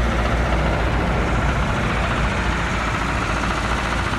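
Lada Zhiguli engine running steadily with a knock, which the owner describes as the engine having started knocking.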